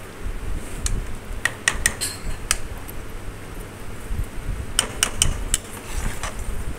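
Steel ladle clinking against the side of an aluminium pressure cooker while lentils are stirred into a tomato masala: scattered sharp clinks, bunched about two seconds in and again about five seconds in, over a low steady rumble.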